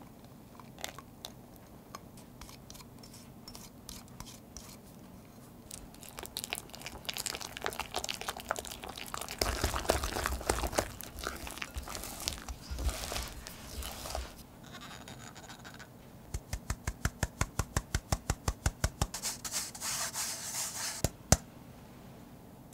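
Wire whisk beating browned butter into thick financier batter in a glass bowl: wet stirring with the wires clicking and scraping against the glass. The strokes pick up about six seconds in and, after a short pause, become a fast even run of about six strokes a second, ending with one sharp tap.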